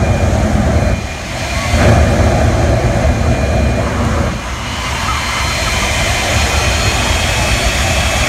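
Jet engine mounted on a monster firetruck running at high power while shooting flame, a loud steady rumble and rush. The sound dips briefly about a second in and again around four seconds, and after that a steady high whine runs over the rumble.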